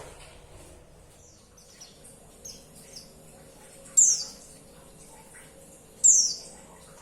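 Female white-eye (pleci) calling: a few soft chirps, then two loud, sharp calls that slide downward in pitch, about two seconds apart. It is the female's call that keepers play to draw male white-eyes into song.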